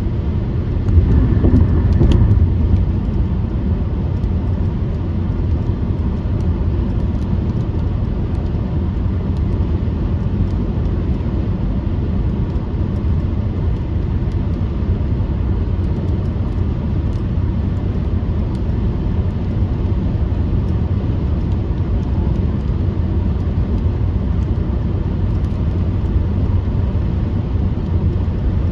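Steady road and engine rumble of a car being driven, heard from inside, with a brief louder patch about a second in.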